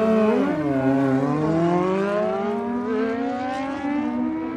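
Drag-racing motorcycle engines revving. One engine's pitch dips about a second in, then climbs steadily for about three seconds.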